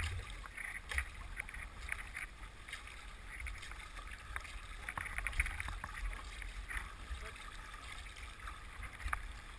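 Moving river water rushing and splashing against a canoe's hull as it runs down a riffle, a steady wash with many small, irregular splashes and a few sharper slaps.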